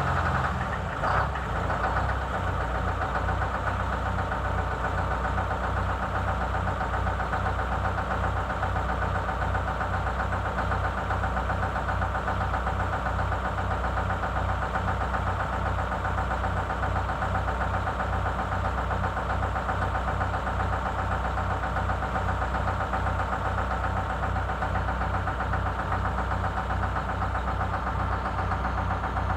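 Detroit Diesel 8V-71 two-stroke V8 diesel bus engine idling steadily, with a short disturbance about a second in.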